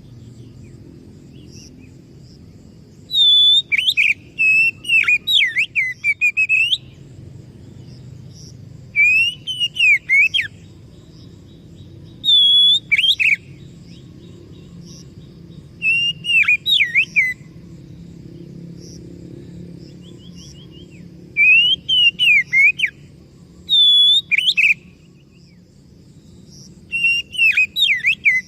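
Oriental magpie-robin singing: about seven loud bouts of clear whistled notes with quick up-and-down slurs, each bout one to three seconds long with pauses between. A faint steady low hum lies underneath.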